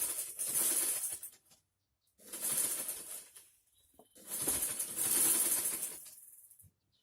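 Electric sewing machine running in three bursts of about one and a half to two seconds each, stopping in between, as the foot pedal is pressed and released.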